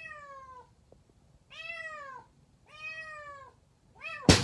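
Kitten meowing: four separate meows about a second and a half apart, each falling in pitch, the last one short. A sudden, much louder burst of noise cuts in right at the very end.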